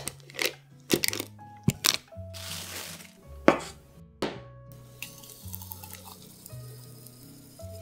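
Soft background music over kitchen handling sounds: several sharp knocks and scrapes in the first half, as a spatula scoops whipped cream from a plastic cup and a glass is handled. In the second half, a faint grainy trickle as a thick pink Oreo shake pours into a glass.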